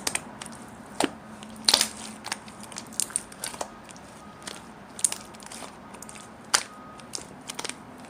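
Clear mixed slime being worked by hand, giving irregular sharp clicks and pops.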